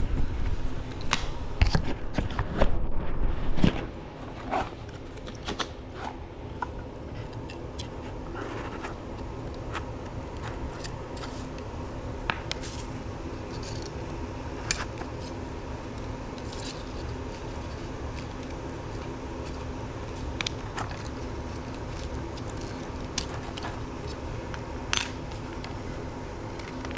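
Small hand tools clicking and scraping on an iPhone as it is pried apart, with a run of louder knocks and clicks in the first few seconds, then scattered fainter clicks over a steady low hum.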